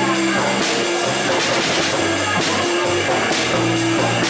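Live rock band playing: electric guitars over a steady, moving bass line, with drums and cymbals keeping a beat.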